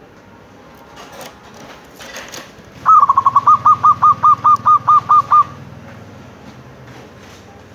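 Zebra dove (perkutut) calling: a quick run of about a dozen evenly spaced cooing notes, the first slightly higher, lasting about two and a half seconds, starting about three seconds in.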